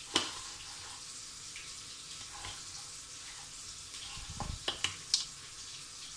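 Wooden spoon stirring boiled potato and boondi chaat in a bowl: soft scraping with a sharp click at the start and a few more clicks and a soft thump about five seconds in, over a steady hiss.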